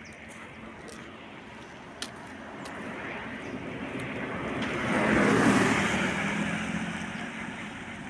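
A car driving past on the road, its noise swelling to a peak about five seconds in with a low engine hum, then fading away.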